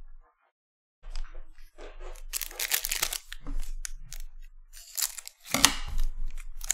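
Foil wrapper of a 2021 Bowman Chrome baseball card pack crinkling as it is handled and torn open. It starts about a second in and is loudest about two-thirds of the way through.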